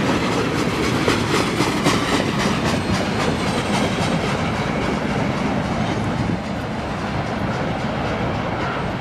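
Freight train's tank cars and boxcars rolling past, steel wheels clicking on the rail with a steady rumble. The clicking is strongest in the first few seconds and the sound drops a little after about six and a half seconds as the cars draw away.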